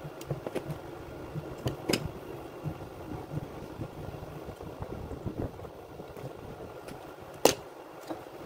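Small clicks and knocks of hand tools and fingers working on a plastic mains plug, over a steady background hum. The loudest is one sharp knock about seven and a half seconds in.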